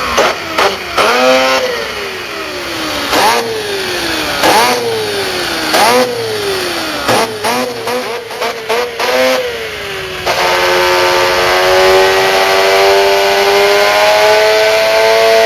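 Rotary-engine sound from a Mazda RX-7 FC radio-controlled drift car, revved in repeated short blips with the pitch falling back after each one and a quick flurry of blips about eight seconds in. From about ten seconds in it holds one long, steady note that slowly climbs in pitch.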